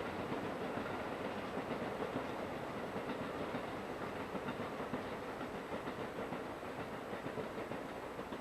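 Train Suite Shiki-shima (E001 series) passing close by: a steady rolling rumble of wheels on rail with repeated clicking over the rail joints, easing off slightly near the end.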